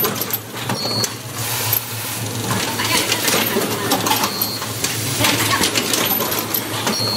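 A toggle switch automatic assembly machine running, its pneumatic cylinders and feed mechanisms clicking and clattering irregularly over a steady low hum. Three short high-pitched tones sound, about a second in, past the middle and near the end.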